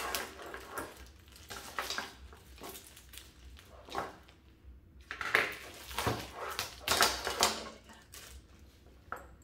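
Plastic packaging crinkling and rustling as the LED grow-light arms are unwrapped, with irregular clicks and knocks as the arms are handled on the table. The louder clusters come about five and seven seconds in.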